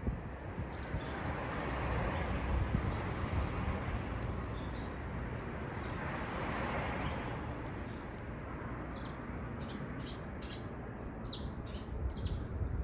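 Small wild garden birds giving short, high chirps, scattered and more frequent in the second half, over a steady background rush.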